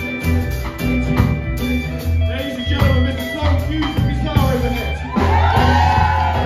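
Live band playing with drum kit, electric and acoustic guitars and bass guitar over a steady pulsing bass line; a voice comes in singing about five seconds in.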